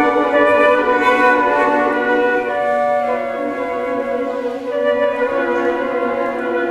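A small flute choir playing sustained chords in several parts, the harmony shifting about three seconds in.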